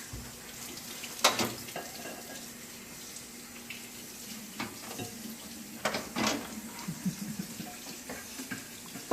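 Kitchen cleanup: dishes and utensils clattering a few times over a steady hiss and faint hum.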